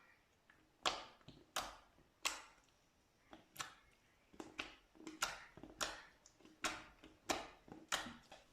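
Pink slime being pressed and worked by hand, giving a dozen or so sharp pops and clicks, one about every half to three-quarters of a second.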